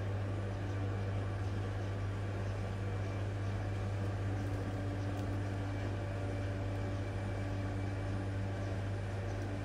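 A steady low machine hum over a constant noisy whir, unchanging throughout.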